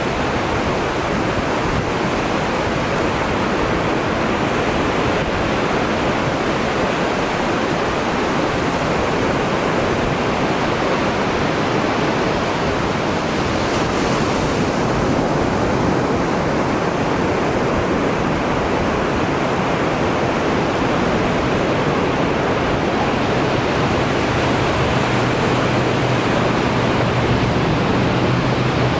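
Ocean surf: waves breaking and washing onto the shore in a steady, continuous rush. A faint low hum joins in about two-thirds of the way through.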